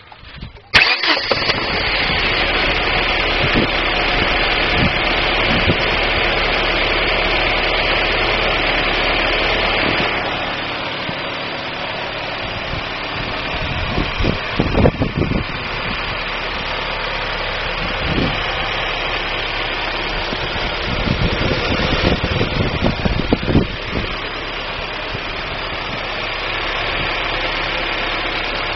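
1999 Daewoo Nubira's 2.0 L DOHC four-cylinder engine starts up just under a second in and runs at idle, louder for the first ten seconds and then settling lower. Irregular thumps and level swings later on point to the engine misfiring.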